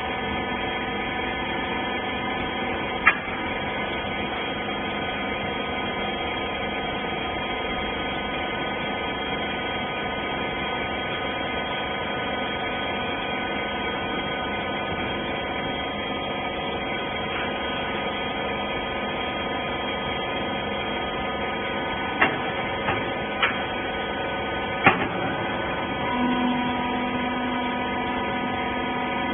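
Wiper bagging baler machine running with a steady motor hum, punctuated by a sharp knock about three seconds in and a cluster of three clicks and knocks near the end.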